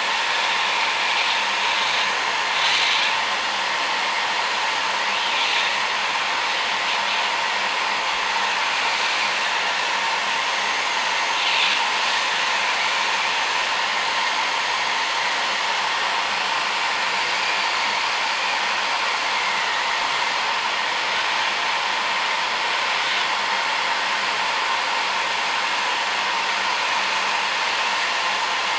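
Hot-air heat gun blowing steadily with an even hiss, heating the LED bulb's circuit board held above its nozzle.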